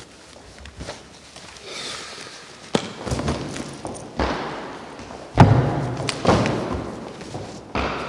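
Footsteps and thuds on a wooden stage floor: a few separate knocks a second or so apart, the loudest about five and a half seconds in, with a brief rustle of cloth about two seconds in.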